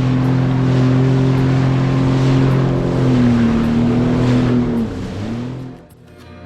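Sea-Doo Fish Pro jet ski engine running at cruising speed: a steady drone over a rushing noise. The pitch dips and recovers a few seconds in, and the sound fades away near the end.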